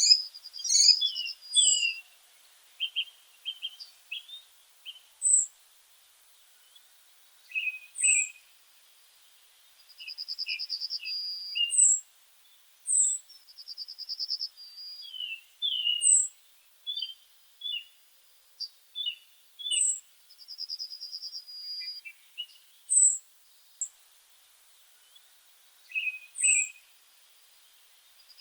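Several songbirds calling and singing: a thin, very high falling note repeated every two to three seconds, rapid trills lasting a second or so, and scattered short chirps in between.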